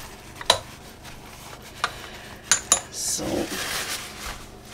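A few light clinks of lidded ceramic ramekins knocking together in a Varoma steamer tray as their tops are dabbed dry with kitchen paper, followed by a longer rustle about three seconds in.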